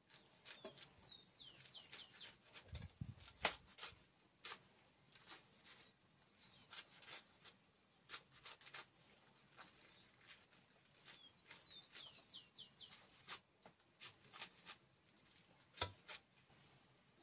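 Kitchen knife slicing through a handful of collard greens, faint crisp cuts coming irregularly one or two a second, one sharper click about three and a half seconds in. Twice, near the start and about eleven seconds in, a bird gives a quick run of four or five falling chirps.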